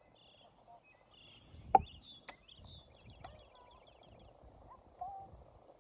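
Birds chirping in short calls and a fast trill, with one sharp knock a little under two seconds in and a couple of lighter clicks after it, over a faint steady outdoor background.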